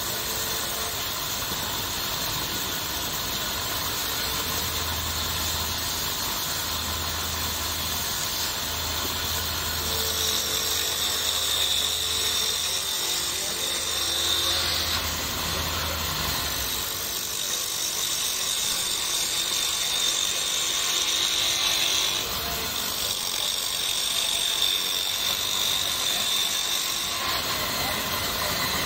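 Small wood lathe running, with a hand-held turning tool scraping into the spinning wooden blank; the high cutting hiss comes and goes in several spells as the tool is pressed in and lifted off.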